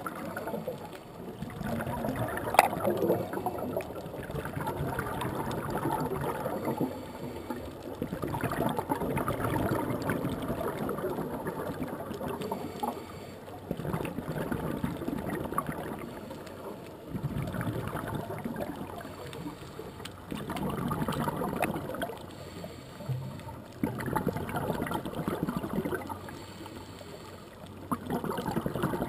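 Scuba regulator breathing underwater: bubbling exhalations come in swells every few seconds, with quieter gaps between breaths.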